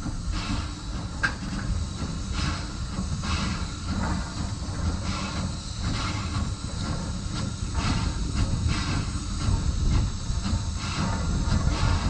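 Nevada Northern Railway No. 40, a Baldwin 4-6-0 steam locomotive, working slowly: exhaust chuffs about once a second over a steady hiss and low rumble.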